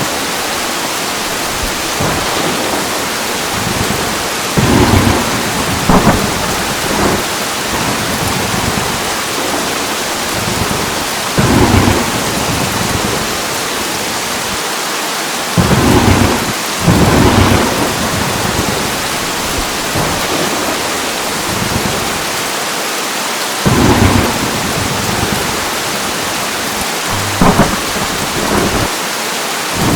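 Thunderstorm: heavy rain hissing steadily, with short, loud claps of thunder every few seconds.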